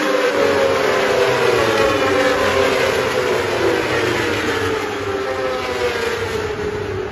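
Endurance-racing superbikes passing at high revs, one after another. Their engine note glides down in pitch over the first few seconds as they go by and move off, and slowly fades.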